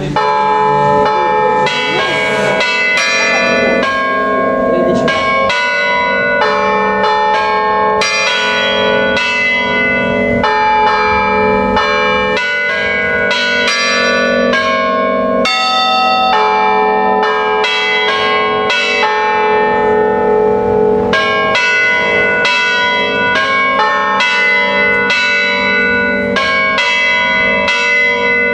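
Bronze church bells hanging still in the tower, struck in quick succession by electric hammers to play a melody. The notes come several a second and ring on over one another.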